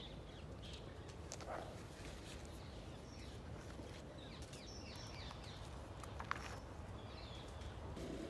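Small birds chirping outdoors, many short quick falling notes, over a steady low background rumble, with a single sharp click about six seconds in.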